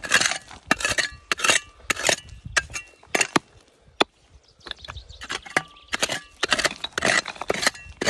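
Rock hammer striking and chipping at stone and packed soil around a geode: a run of sharp, irregular strikes and cracks, some with a short metallic ring, with a brief lull about halfway through.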